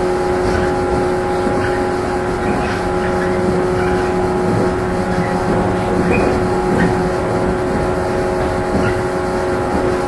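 Running noise inside a JR 115-series electric multiple unit motor car: a steady hum from the traction motors and gears under the floor over wheel and rail rumble, holding one pitch at a constant speed.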